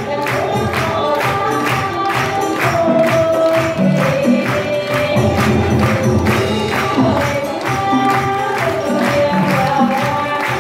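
Live traditional Vietnamese water-puppet theatre ensemble playing, with singing over a steady, quick percussive beat of about three strokes a second.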